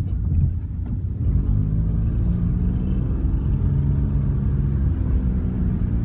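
Car cabin noise while driving at speed: a steady low drone of engine and tyres on the road, with a faint humming tone over it.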